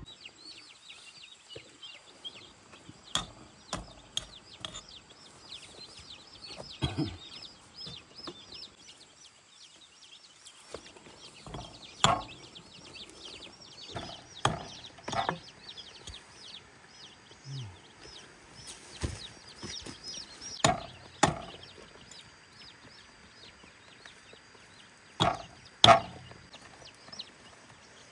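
A brood of young chicks peeping continuously in many short, high chirps, with sharp knocks now and then.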